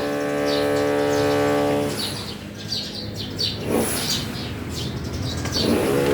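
Small birds chirping, with short high chirps several times a second. In the first two seconds a steady humming tone sounds and then stops.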